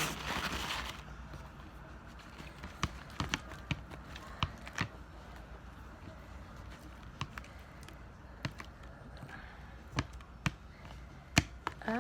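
Scattered light taps and clicks at irregular times as a bowl of homemade glue slime is handled, the spoon having just been put aside.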